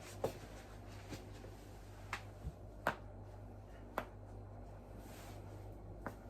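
Human joints cracking: about six sharp pops at uneven intervals, the loudest about three and four seconds in, over a steady low hum.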